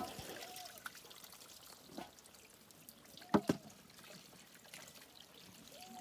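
Water trickling and pouring from a pipe into a steel bowl and spilling into a concrete trough, with hands sloshing as raw meat is rinsed. Two sharp knocks come about three and a half seconds in.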